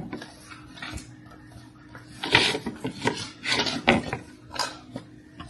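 Cutlery and plates clinking and scraping while cake is eaten: a few separate clatters, the loudest about halfway through, over a faint steady hum.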